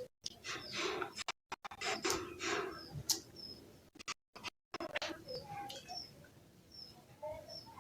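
Birds chirping: short high calls repeating, over irregular rustling and scratching noises, with a few lower calls in the second half.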